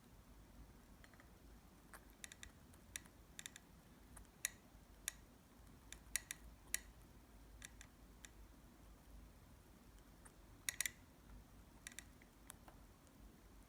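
Scattered faint, sharp clicks and taps, some in quick pairs or clusters, over quiet room tone: a parrotlet's beak pecking and nibbling while it eats strawberry.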